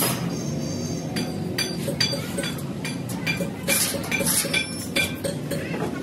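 Repeated light metallic clinks and taps of steel tools against thin galvanized steel sheet, each ringing briefly. They come about two or three a second in the second half.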